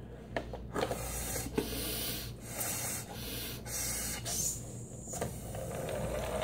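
A person blowing up a balloon through a drinking straw by mouth: a few long puffs of breath, with breaths taken between them. Near the end the balloon is released and air rushes out through the straw as the balloon car rolls away.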